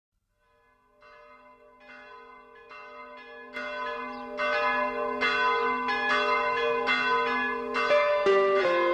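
Bells ringing as the opening of a song recording, struck about once a second and fading in, growing louder over the first few seconds. Near the end the pitch moves as the accompaniment begins.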